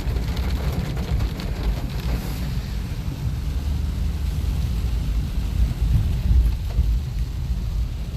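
Car driving in the rain, heard from inside the cabin: a steady low rumble of engine and road noise with a faint hiss of rain.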